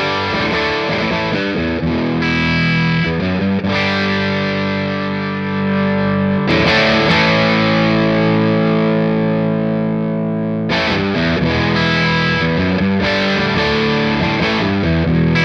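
Electric guitar with humbucking pickups played through a vintage-style amp-sim plugin, with the gain up enough to add some grit. A series of sustained chords rings out, changing every couple of seconds.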